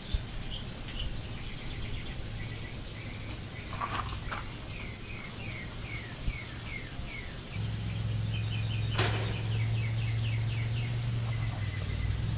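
A songbird singing a long run of short, falling chirps, several a second, in two bursts. A steady low hum comes in about halfway through, and there is one sharp click a little later.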